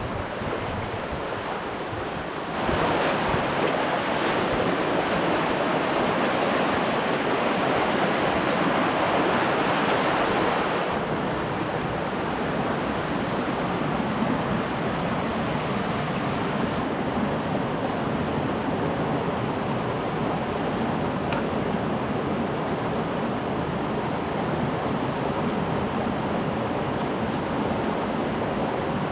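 Mountain creek rushing steadily over rocks and small cascades. The rush grows louder about three seconds in and eases back a little around eleven seconds.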